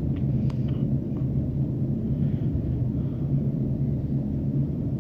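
A steady low kitchen hum, with a few light taps of a steel ladle against an aluminium kadai in the first second and a faint sizzle of onions frying in ghee.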